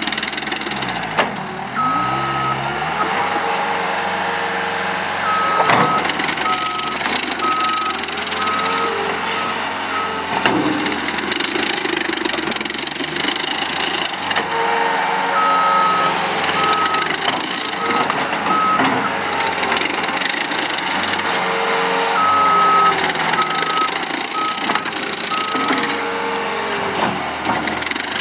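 Caterpillar 287B skid steer's diesel engine running under load, its pitch rising and falling as the machine is driven back and forth. The backup alarm beeps in four separate runs while it reverses.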